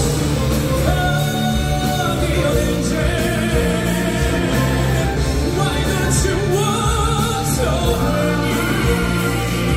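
A man singing into a microphone over loud, amplified rock-style backing music, a live musical-theatre song heard through a hall's sound system.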